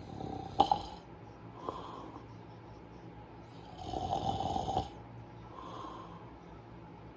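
Snoring: a sleeper's breaths catch and rattle in the throat several times, a short one with a sharp catch about half a second in and the longest, loudest snore about four seconds in.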